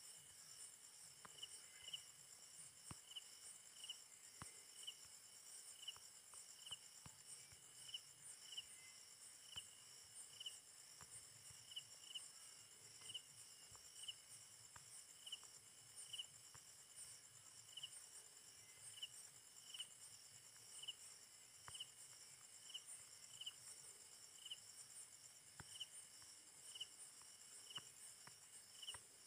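Faint insect chirping: a steady high trill with a short chirp about three times every two seconds, and scattered faint clicks.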